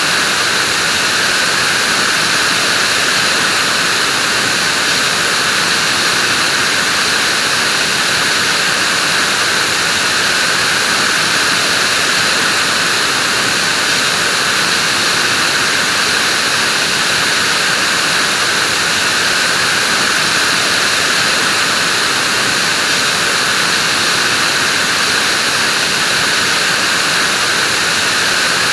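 Vacuum cleaner running continuously at a constant speed: a loud, even rushing hiss with a steady high whine and no changes.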